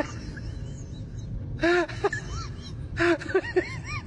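A person laughing in two short bouts, each a breathy gasp followed by quick rising-and-falling "ha" syllables, over a steady low rumble.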